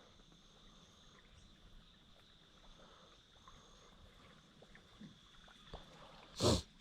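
Quiet night ambience on the water with a faint steady high-pitched ringing and scattered small clicks. A single short loud burst comes near the end.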